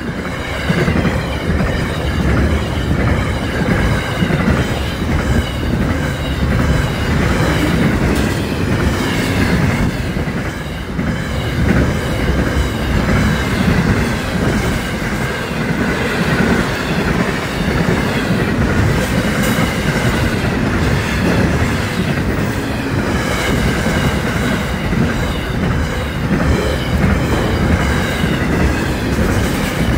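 Container freight train passing close by at a steady speed: a continuous rumble and clatter of the wagons' wheels on the rails.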